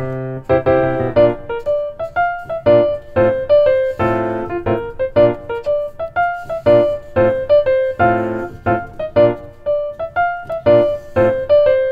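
Background music: a keyboard tune of short, quick piano-like notes.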